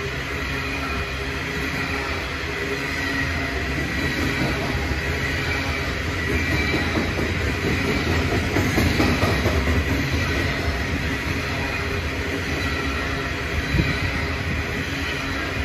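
Loaded coal hopper wagons rolling past close by: a steady rumble of steel wheels on the rails. It swells a little around the middle, and there is one sharp knock near the end.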